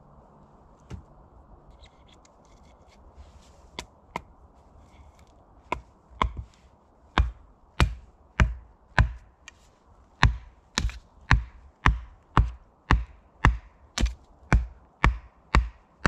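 A tool striking wood in a steady series of heavy blows, about two a second, after a few scattered knocks at the start.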